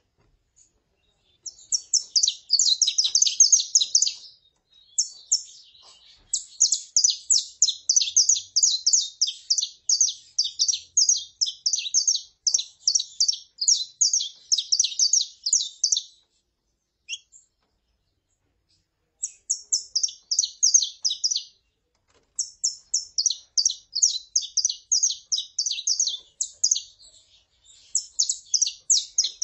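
Saffron finches (canário-da-terra), a female calling and a male singing, in long runs of rapid, high, chipping notes. Each run lasts several seconds, with short breaks between them and one pause of a few seconds about halfway through.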